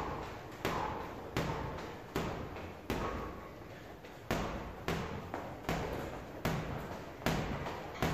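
Boxing glove landing light lead-hand jabs on a heavy punching bag, about one punch every three-quarters of a second, with one slightly longer break near the middle.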